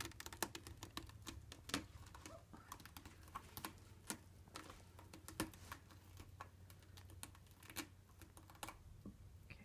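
Close-up scuffling and handling noise among Ragdoll kittens in a plush cat tree bed: faint, irregular clicks and taps, a few a second, with soft rustling.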